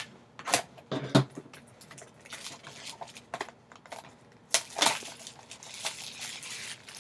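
Clear plastic shrink-wrap being torn and peeled off a cardboard trading-card box, crinkling and crackling. There are a few sharp snaps of the film in the first second or so, the loudest just over a second in, and another cluster about four and a half seconds in.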